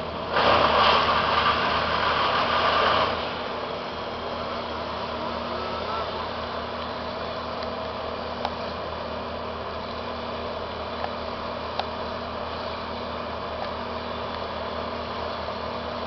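Engine of the tree crew's equipment running steadily at idle, with a loud burst of machine noise lasting about three seconds near the start and a few faint clicks later.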